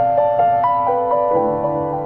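Instrumental theme music: a keyboard plays a slow run of notes over held chords, and the chord shifts lower about two-thirds of the way through.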